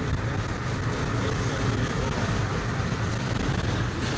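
Steady rumble of a car driving, heard from inside the cabin: engine and road noise with a hiss of wind over it.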